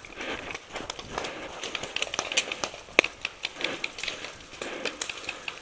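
Footsteps crunching through dry leaves and twigs, with brush crackling against the player, an irregular run of short crunches and one sharper crack about three seconds in.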